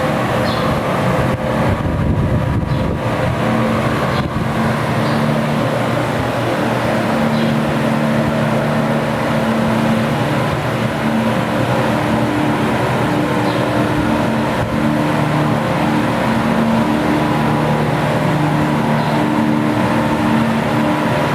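Loren Sid Tufão M2 150-watt electric fan running: a steady rush of air with a low motor hum.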